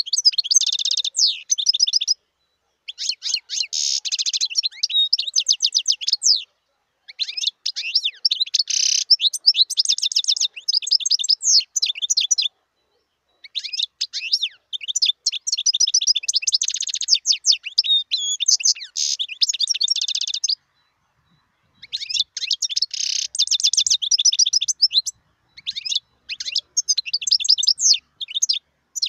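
Wild-caught European goldfinch (chardonneret) singing in a cage: high, rapid twittering song in runs of two to six seconds with short breaks between.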